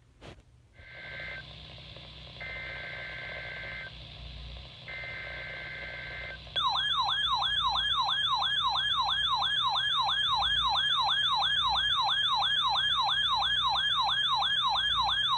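Emergency Alert System broadcast opening: three short bursts of the SAME digital data header, each a buzzy two-pitch screech about a second long with about a second between them. About six and a half seconds in, a loud alert tone starts, sweeping up and down about three times a second.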